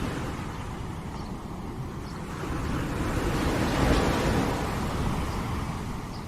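Sea waves washing onto a shore: a steady rush of surf, with one wave swelling to a peak about four seconds in and then easing off.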